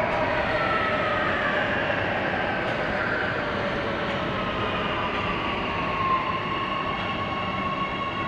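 Oslo T-bane metro train running in the station, a steady rumble of wheels and running gear under the whine of its electric traction motors. The motor whine is several tones that slowly fall in pitch, settling into one steady tone after about six seconds.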